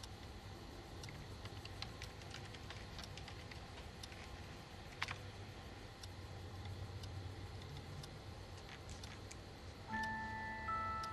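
Faint low hum with scattered small ticks and one sharper click about five seconds in; soft bell-like music notes come in near the end.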